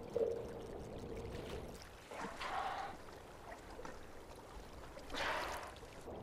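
Water sounds from the sea: a low steady wash with two brief rushes of bubbling or splashing, about two seconds in and again about five seconds in.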